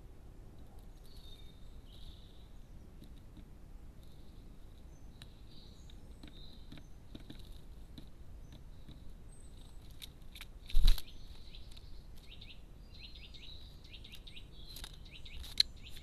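Great spotted woodpecker pecking at a fat cake in a feeder: scattered light taps of the beak, with one loud knock about two-thirds of the way through. Small birds chirp faintly over a steady background hiss.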